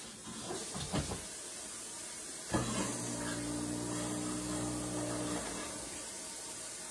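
Omelet mix sizzling and steaming inside a closed Red Copper 5 Minute Chef electric meal maker, a steady hiss. A low hum comes in about two and a half seconds in and stops about three seconds later.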